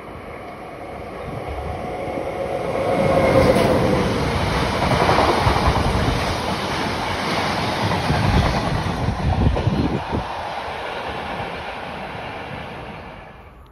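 Freight train hauled by an SNCF BB 26000-class dual-voltage electric locomotive passing at speed, its flat wagons running by close below. The noise swells from about two seconds in, stays loud for several seconds, eases off as the train moves away, then cuts off suddenly at the end.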